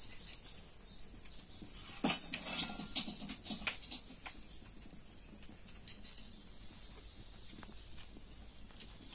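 Faint, steady, high-pitched insect trill, pulsing evenly. One sharp knock comes about two seconds in, followed by a few lighter clicks.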